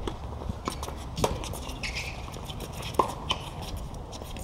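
Tennis ball being struck and bouncing during a doubles rally: a few sharp knocks spread over the first three seconds, the loudest about three seconds in, over faint background noise.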